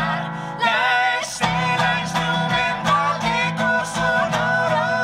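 A woman singing a song into a microphone to acoustic guitar accompaniment. The guitar drops out briefly near the start and comes back in about a second and a half in.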